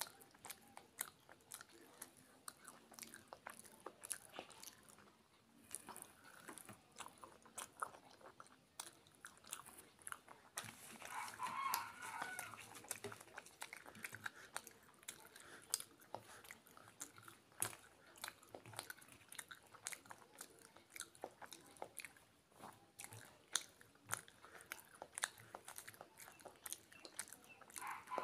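Close-miked chewing, lip smacks and mouth clicks of someone eating kochuri, deep-fried puffed bread, with potato-chickpea curry by hand, with crackles as the crisp bread is torn.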